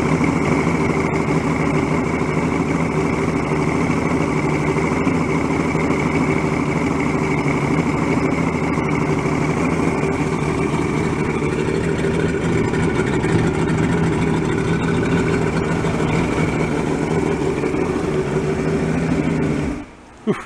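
Two-stroke outboard motor idling steadily at an even pitch, running smoothly after ten years of sitting; it is shut off near the end.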